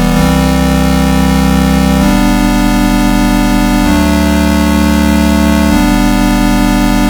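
Loud, buzzy vocoded synthesizer sound: a dense held chord that jumps to a new set of pitches about every two seconds.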